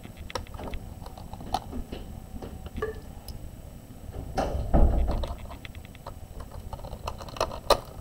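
A #1 Phillips screwdriver backing small screws out of a laptop motherboard: scattered light clicks and ticks of the driver tip and the screws, with a louder knock of handling about halfway and two sharp clicks near the end.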